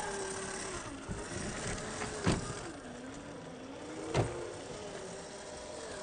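Electric motor and gear drive of a radio-controlled scale crawler truck whining, its pitch dipping and rising as the throttle changes, with sharp knocks about two seconds in and again about four seconds in.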